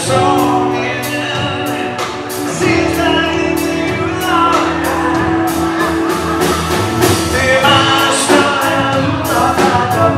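Live band playing a song with a lead singer, guitar and drums, the drums and cymbals keeping a steady beat under the vocal.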